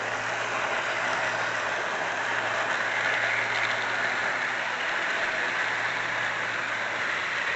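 Bachmann Union Pacific SD40-2 model locomotive running around its track pulling its cars: a steady whir of the small electric motor and wheels on the rails, with a low steady hum underneath.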